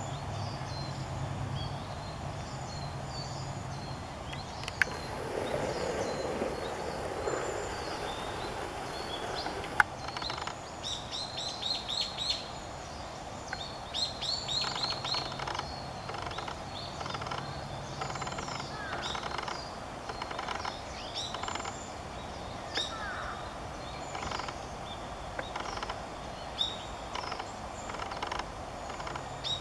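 Wild birds chirping and calling, in quick runs of short chirps from about ten seconds in, over a steady low hum. Two sharp clicks stand out, about five and ten seconds in.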